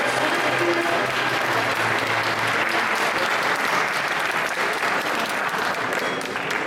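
Audience applauding, steady throughout, with the tail of the posing music dying away about two and a half seconds in.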